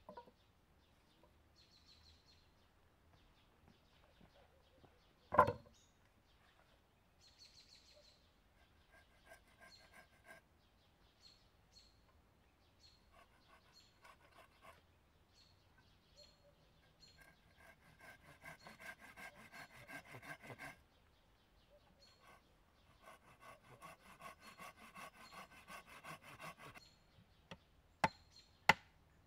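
Wood being worked by hand: one loud wood-on-wood knock about five seconds in, two stretches of rhythmic scraping on a green wooden pole later on, and a run of sharp hatchet chops into the pole on a stump near the end. Faint bird chirps come and go throughout.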